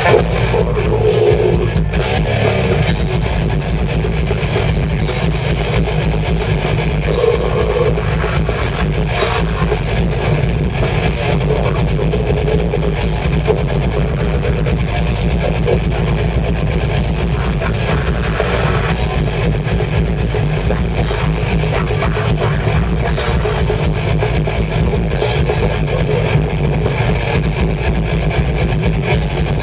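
Live rock band playing loudly: electric guitars over a drum kit in one dense, unbroken wall of sound.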